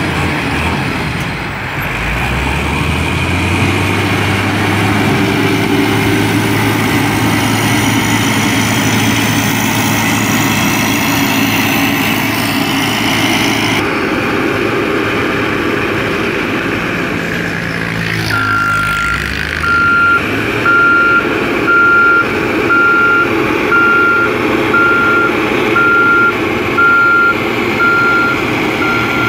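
Heavy construction vehicle engine running steadily; about two-thirds of the way through, its reversing alarm starts, a single-pitch beep repeating about once a second.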